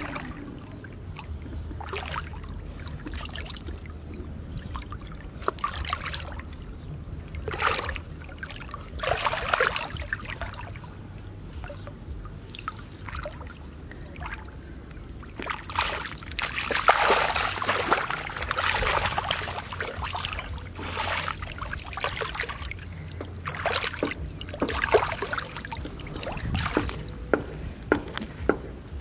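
Hands sloshing and splashing in shallow muddy water, in irregular bursts, busiest about halfway through.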